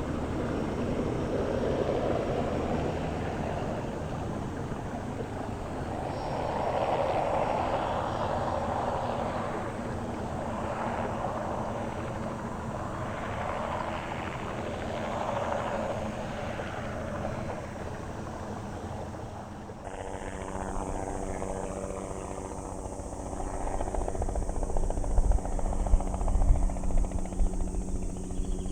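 Bell 206B-3 JetRanger III helicopter with its single turboshaft engine flying, its sound swelling and fading several times as it passes. About two-thirds in the sound changes abruptly to a steadier engine whine, with heavy low rumbling near the end.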